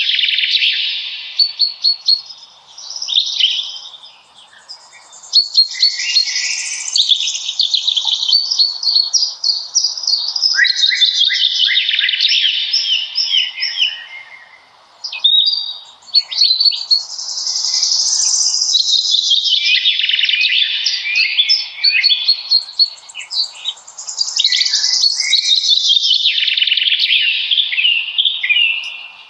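Songbirds singing: long phrases of rapid, fast-changing chirps and trills, broken by short pauses a few times, over a faint steady hiss.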